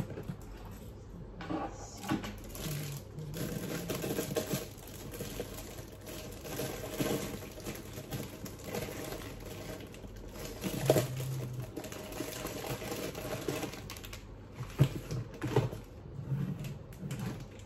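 Irregular clicks, knocks and light rustling of things being handled in a kitchen, with a sharp knock about eleven seconds in and two more near fifteen seconds.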